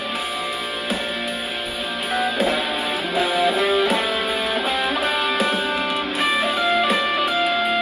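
Electric guitar lead improvisation on the bridge pickup through a Positive Grid Spark Go mini amp on its solo preset, over a D minor backing track played through the amp. Single-note lines with string bends in the middle, then a long sustained note near the end.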